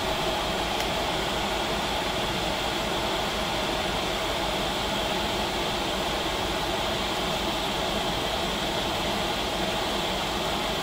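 Chinese clone of an Eberspächer/Webasto diesel air heater running on high: steady fan noise from its blower and burner, unchanging.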